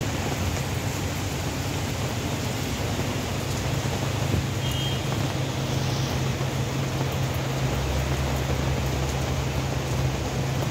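Road traffic on a wet street: the engines of slow, queued cars and a box van run close by over a steady hiss. A deeper engine hum joins near the end.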